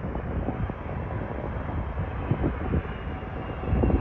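Airbus A380 jet airliner on final approach, its four jet engines making a steady low rumble that grows louder near the end as the aircraft closes in, with a faint high whine coming in.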